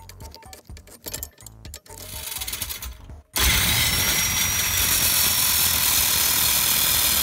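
Background music, then about three seconds in an angle grinder cuts in abruptly on metal clamped in a bench vise. It makes a loud, steady grinding rush with a thin high whine from the spinning disc.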